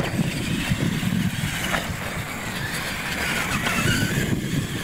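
Radio-controlled monster truck driving on a dirt track, its motor and gears giving a whine that rises and falls, with a gusty low rumble of wind on the microphone.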